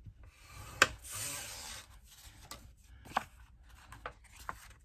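A scoring tool scraping along the groove of a scoring board across 110-pound cardstock for about a second, right after a sharp click. A few lighter clicks and taps of the tool and card follow.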